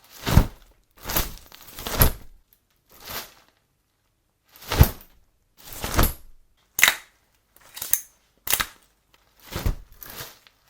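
An umbrella being snapped open and shut again and again: about a dozen short snaps and swishes, each a fraction of a second long, with silence between them.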